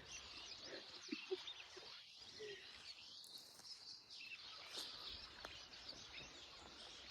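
Faint outdoor ambience with scattered bird chirps.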